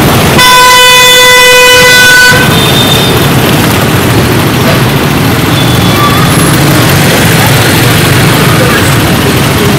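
A vehicle horn sounds one loud, steady tone for about two seconds, starting just after the start. Under it and after it runs continuous motorbike and street-traffic noise.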